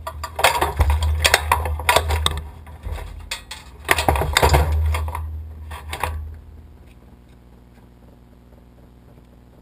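Triumph 955cc inline-three motorcycle engine in a go-kart running in uneven surges with metallic rattling and clatter, which the builder puts down to the chain tensioner coming loose. The engine cuts off about six seconds in.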